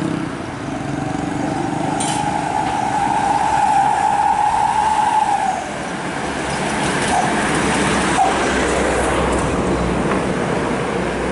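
Intercity buses passing in convoy on the road, with engine and road noise. A steady high-pitched tone sounds over them for about the first five seconds, and a deeper rumble builds near the end.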